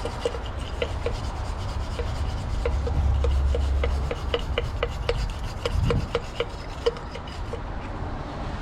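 Wire brush scrubbing the sooty metal combustion chamber of a diesel air heater in short, repeated scraping strokes, knocking loose carbon built up from long low-speed running.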